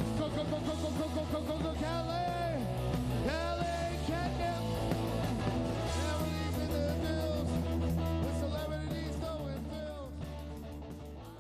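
Rock song with a male lead vocal over guitar and bass, fading down near the end.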